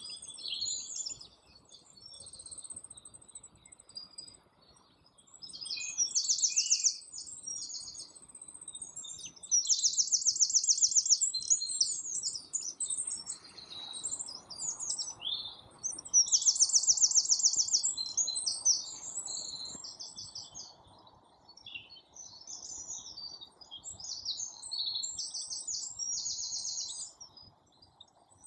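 Songbirds singing: one bird repeats a loud, fast trilling phrase four times, each about a second long, while other birds chirp in between.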